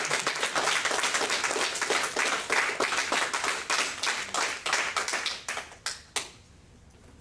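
A group of people clapping their hands, dense at first and thinning to a few last claps that stop about six seconds in.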